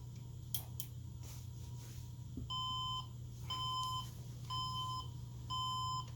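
An HP Elite 8200 desktop PC sounds four error beeps at power-on, each about half a second long and about a second apart, starting a couple of seconds in. The beeps are a startup error warning that the owner traces to loose pins on the fan connection of the power supply adapter. A steady low hum runs underneath.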